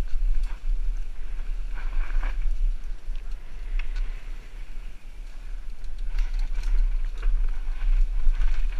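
Mountain bike descending a rocky dirt singletrack, heard from a rider-mounted camera: wind rumbles steadily on the microphone, with scattered rattles and knocks as the bike runs over rocks and roots.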